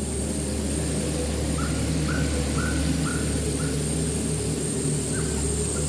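Engine of a self-propelled crop sprayer running at a steady hum as it drives across a field. Over it a bird gives short chirps, five in quick succession about a second and a half in, then one more near the end.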